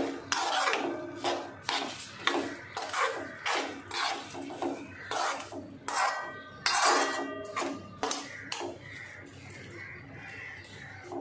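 A steel spoon scraping and knocking against a stainless steel kadhai as grated carrots cooked in milk are stirred together with sugar. There are about two strokes a second, some ringing metallic, and they grow softer over the last couple of seconds.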